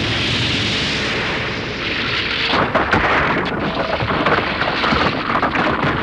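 Anime explosion sound effect: a sustained blast rush that turns, about halfway through, into a dense crackle of shattering rock and falling debris.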